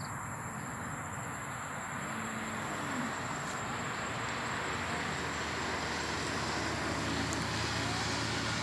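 Steady outdoor background noise, an even hiss with a faint low hum that grows slightly louder in the second half, like distant road traffic.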